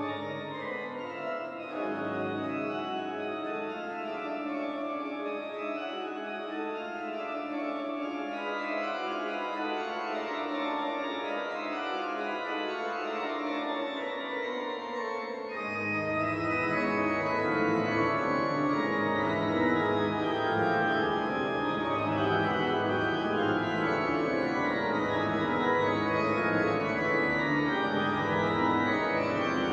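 Schuke pipe organ playing a dense, many-voiced passage. About halfway through, deep bass notes come in and the sound grows louder.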